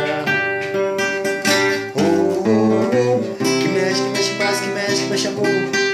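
Acoustic guitar strummed in a steady rhythm, ringing chords played between sung lines of a song.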